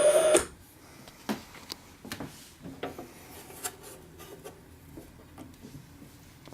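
Playback from the Panasonic SD-85 record player stops abruptly about half a second in. Scattered light clicks and knocks follow as the record player is handled.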